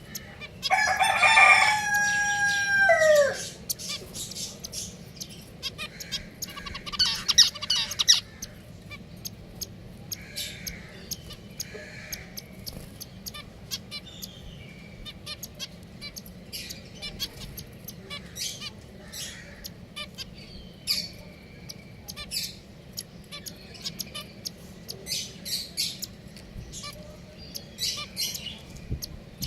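A rooster crows once near the start, one long call that drops in pitch at the end. Small finches chirp with short, high notes throughout, with a louder burst of calls a few seconds after the crow.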